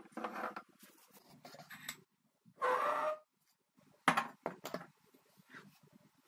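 Handling noise of glass bottles and a plastic funnel being knocked and set down on a kitchen counter: scattered clicks, a half-second scrape about two and a half seconds in, and a sharp knock about four seconds in, the loudest.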